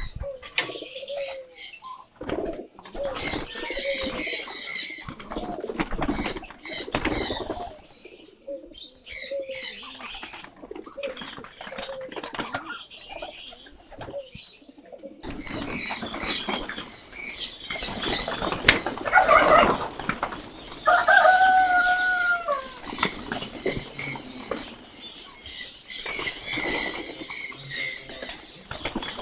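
A group of male giribaz pigeons flapping their wings as they are released and take flight, with repeated wing flaps and some cooing.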